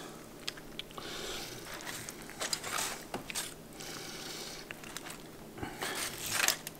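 Knife cutting through a smoked brisket: several rasping sawing strokes, with a few light knocks between them.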